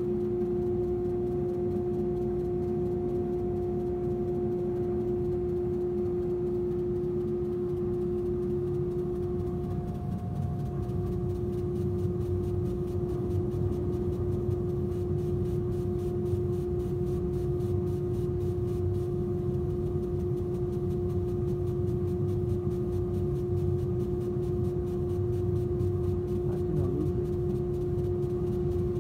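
130 W CO2 laser cutting machine running during a cut: a steady hum with a strong even tone over a low rumble.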